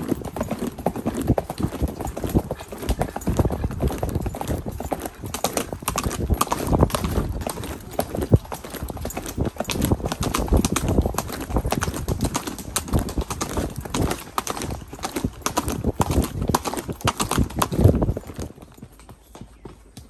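A purebred Arabian horse's hooves clip-clopping in a steady stream of hoofbeats, dying down near the end.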